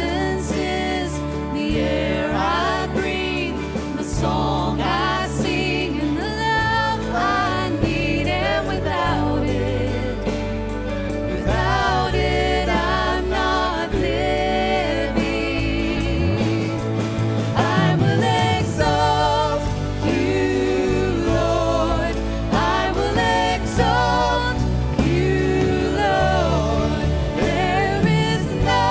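Live contemporary worship song: voices singing with a band of acoustic guitar, electric bass, keyboard, flute and drums. The bass drops out briefly about midway, then returns.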